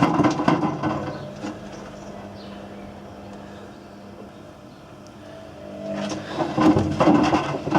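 Whirlpool WWDC 7210/1 washing machine drum tumbling, with hard objects knocking and clattering inside it. About a second in the drum slows to a pause with only a steady low motor hum, then it turns again and the clatter builds back from about six seconds.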